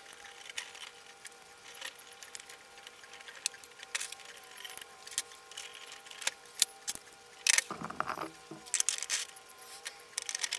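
Irregular light clicks and clatter of 3D-printed plastic clock gears and frame being handled, with a louder knock and rattle about three-quarters of the way through.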